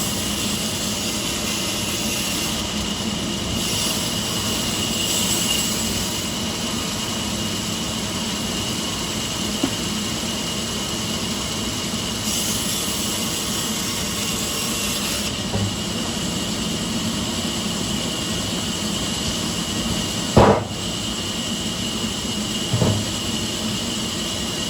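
Sawmill machinery running steadily with a constant high whine, and a sharp thump about twenty seconds in followed by a smaller knock shortly after.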